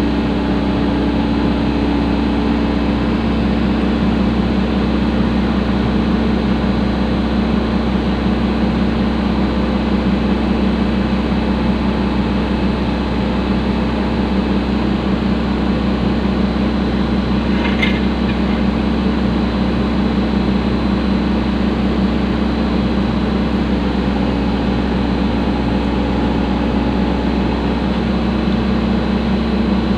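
Excavator's diesel engine running steadily, an even drone with no change in loudness. A brief sharp click sounds about 18 seconds in.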